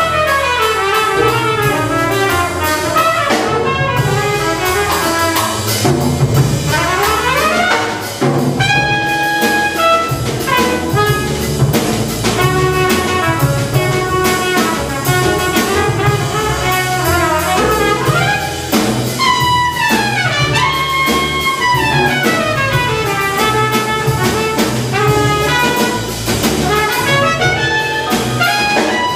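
Small jazz group playing live: a trumpet plays quick runs and sweeping rising and falling phrases over piano, acoustic upright bass and drum kit.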